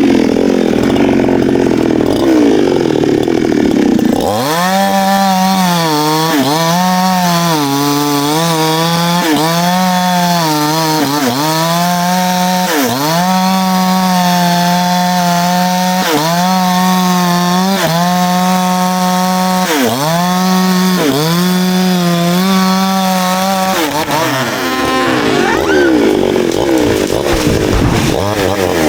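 Two-stroke chainsaw running hard while cutting wood. From about four seconds in it holds a steady high pitch that dips briefly about once a second as the chain loads in the cut. Near the start and again near the end the pitch wavers up and down.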